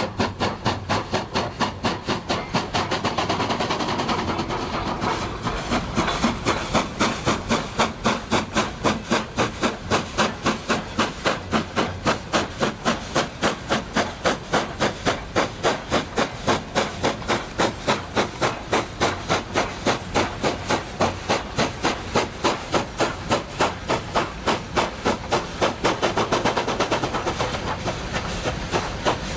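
Coal-fired steam locomotive working steadily under load, its exhaust chuffing in an even beat of about three a second over a constant hiss of steam.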